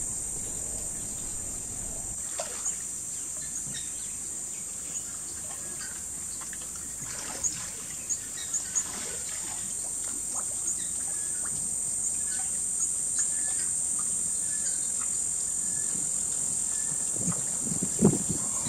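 Steady high-pitched chorus of insects, with scattered short bird calls and clicks through it. A few louder low knocks come near the end.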